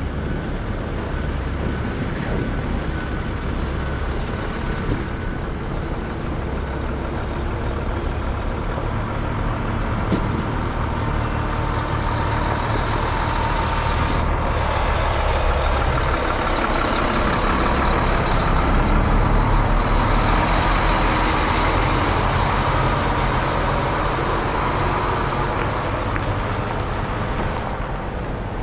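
Semi-truck running steadily, its engine and road noise swelling slowly to a peak about two-thirds of the way through, then easing off.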